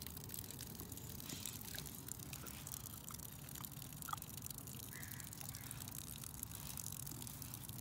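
Water spraying and trickling from a garden spray stake onto grass: a steady hiss with fine crackle, over a low rumble of wind on the microphone.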